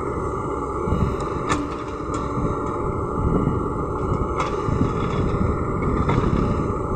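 LiuGong crawler excavator's diesel engine running steadily under load as the bucket digs through soil. Three sharp metallic knocks come through it: about a second and a half in, just past four seconds, and near six seconds.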